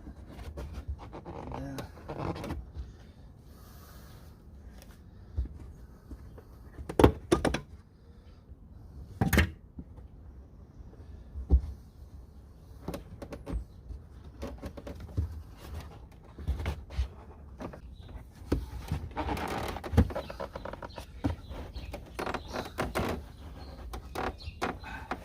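Scattered knocks, clunks and rustling from hands working on a car's interior trim. Two sharp, loud knocks come about seven and nine seconds in.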